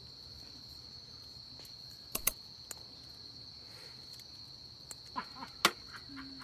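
A steady, unbroken high-pitched insect trill, with a few sharp clicks about two seconds and five and a half seconds in.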